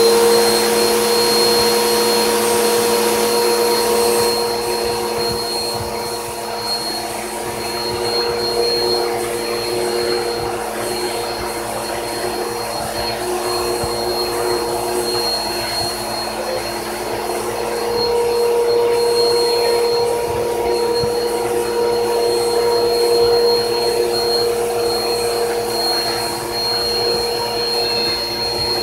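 Vacuum cleaner running steadily, a motor hum with a high steady whine over rushing air, as its brush nozzle is drawn over a cat's fur. The loudness and tone waver slightly as the nozzle moves.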